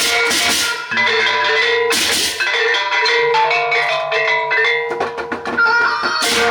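Sasak gendang beleq ensemble playing: drums and gongs under held metallic tones, with cymbals clashing at the start, about two seconds in, and again near the end.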